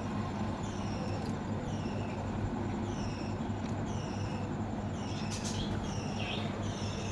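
A steady low hum runs under a short, falling chirp that repeats every second or so, like a small bird calling.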